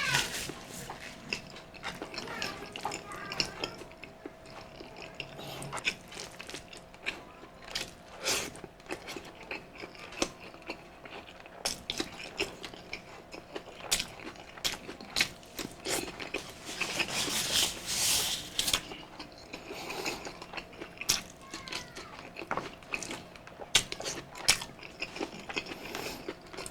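Close-miked eating of balbacua beef stew: irregular chewing and mouth smacks with occasional clicks of a spoon or cutlery. A faint steady hum runs underneath.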